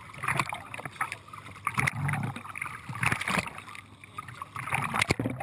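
Water sloshing and splashing irregularly around a camera at the waterline, as a scuba diver moves in the water beside a boat's hull.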